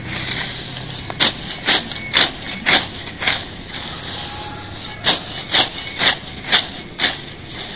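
Hand sickle slicing through low grass and weeds in quick strokes, about two a second, in two runs of five with a short pause between.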